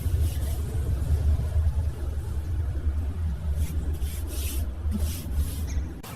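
Steady, loud low rumble, with a few short hissing strokes layered on top about four to five seconds in; the rumble cuts off abruptly just before the end.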